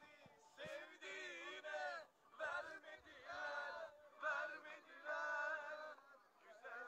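A man singing in short phrases, some notes held long, with pauses between them.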